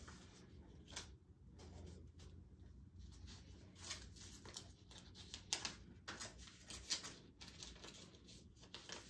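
Faint rustling of paper as a greeting card and its envelope are handled and opened: a run of short, scratchy rustles, a few of them sharper than the rest.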